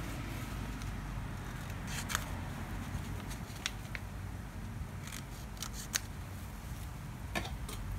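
Scissors cutting thin cardboard: a few scattered snips and clicks.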